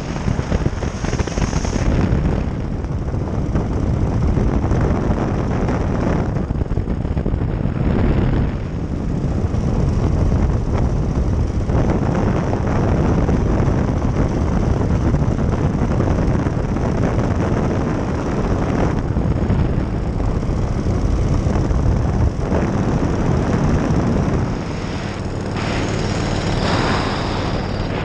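Powered parachute trike's engine and propeller running steadily in flight, a continuous loud roar.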